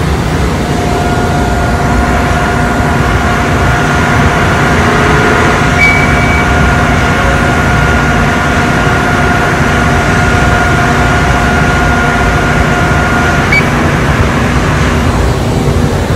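Mazak CNC vertical machining center running after cycle start, with a loud steady whir. A steady two-note whine starts about a second in and stops with a small click near the end.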